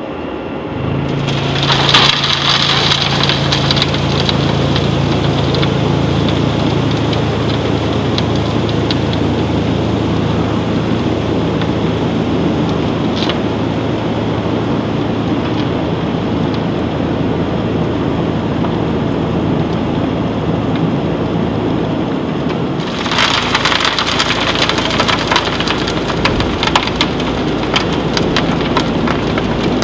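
Vibrafloor reclaimer emptying a hopper of crystal potash: a steady low machine hum under a continuous hiss and crackle of potash crystals pouring and sliding over steel. The crackling gets louder and busier about two-thirds of the way in, as the hum fades.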